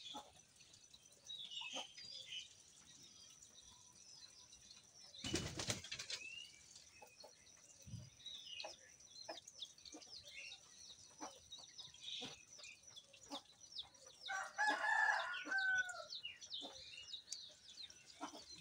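Birds chirping in short calls throughout over a faint steady high tone, with a chicken clucking louder about 15 seconds in. A brief rustling burst about 5 seconds in is the loudest moment.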